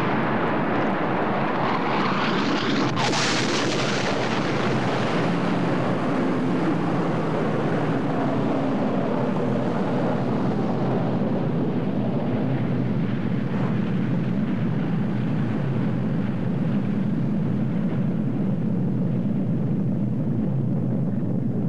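Film sound effect of a nuclear explosion: a loud, continuous rumble, with a sharper blast about three seconds in. After about eleven seconds the hiss dies down and a deep rumble carries on.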